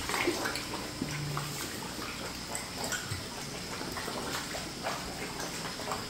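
Steady, faint bubbling and trickling of water in a shallow tadpole tub, air rising from the sponge filters, with a few small splashes.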